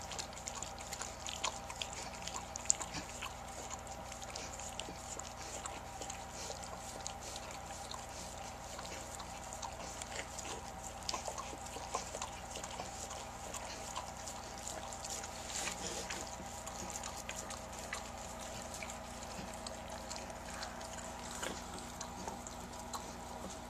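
A German Shepherd mother licking her newborn puppy clean: soft, wet licking and lapping made of many small irregular clicks, over a faint steady hum.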